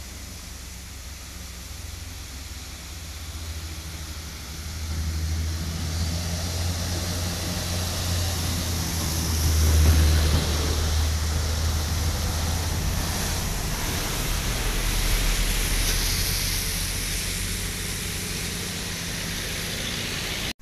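Roadside traffic passing: the low, steady drone of dump truck diesel engines, swelling as trucks go by and loudest about ten seconds in, mixed with motorcycles and cars and a hiss of tyres on the road.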